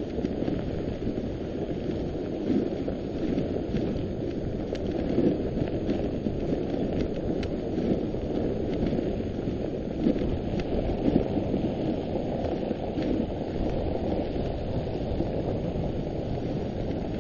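A dog sled running along a packed snow trail: a steady rushing noise from the runners sliding over the snow, with faint light ticks throughout.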